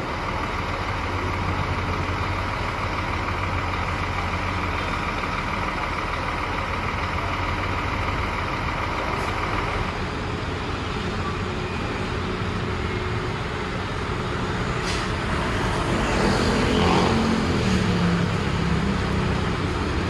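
Large diesel bus engine idling steadily, a constant low hum. In the last few seconds it grows louder, with a second engine note wavering up and down in pitch.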